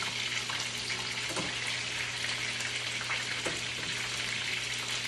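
Hot grease sizzling steadily around coated food frying in a pan on the stove.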